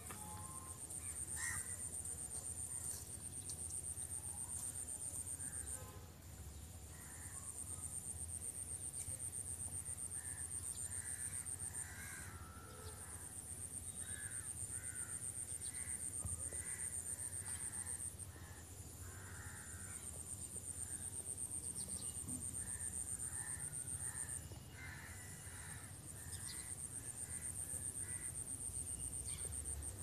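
Outdoor ambience: a steady high-pitched insect drone that breaks off briefly about every six seconds, with short scattered bird calls over it.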